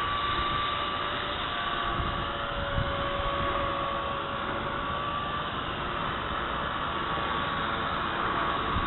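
M120 radio-controlled helicopter in flight: its electric motor and rotors give a steady whine that drifts slightly in pitch, over a low rumble of wind on the microphone.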